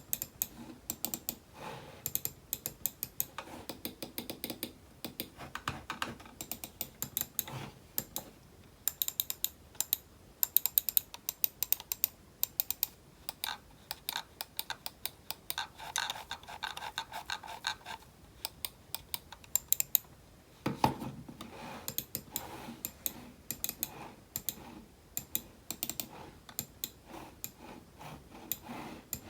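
Typing on a computer keyboard: quick runs of key clicks with short pauses between them. About two-thirds of the way through there is a heavier, deeper key stroke.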